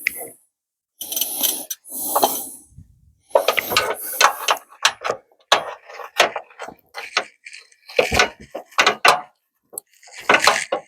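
Metal hand tools clinking, knocking and scraping against the car's suspension in irregular short bursts, as a socket or spanner is fitted and worked on a stubborn bolt.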